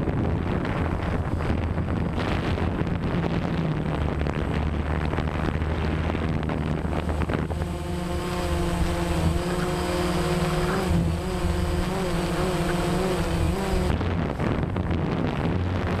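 Drone motors and propellers buzzing steadily, picked up by the camera it carries, with wind noise on the microphone. From about halfway through to near the end, a set of higher, wavering whining tones joins in as the motors change speed.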